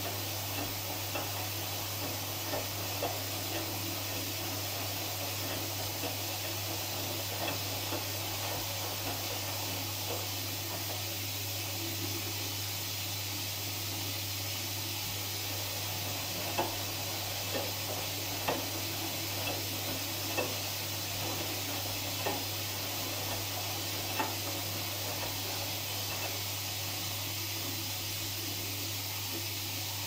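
Front-loading washing machine drum turning wet, sudsy laundry during the wash: a steady wet swishing over a low hum. Soft knocks come as the load drops in the drum, most of them about every two seconds in the second half.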